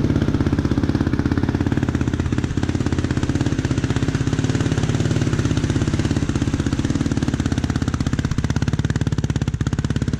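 2020 Yamaha YFZ450R's single-cylinder four-stroke engine running through a Yoshimura full aftermarket exhaust, holding a steady speed without revving, with a rapid, even exhaust pulse. The engine has no programmer yet, which the owner says it needs to run right with this exhaust.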